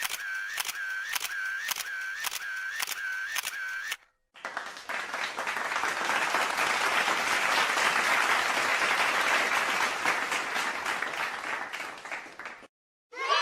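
Camera shutter clicks repeated about twice a second for the first four seconds. After a short gap, applause swells and fades away over about eight seconds.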